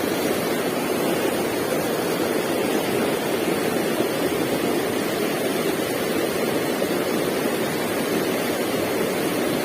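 Stream water rushing steadily over rocks, an even, unbroken noise.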